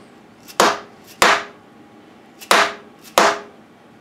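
Four sharp knocks in two pairs, each with a brief ring, like hard taps on a workpiece.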